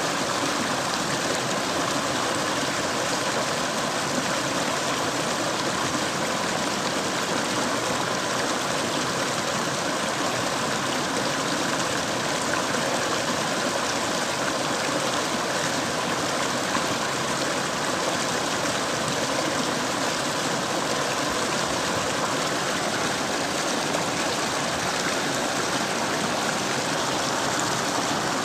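Mountain river flowing, a steady, unbroken rush of water.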